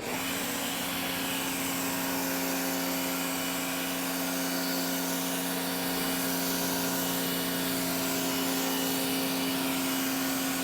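Bosch Aquatak 130 electric pressure washer running steadily under load: a motor-and-pump hum with a loud hiss of spray from the foam lance. It switches on with a click as the trigger is pulled.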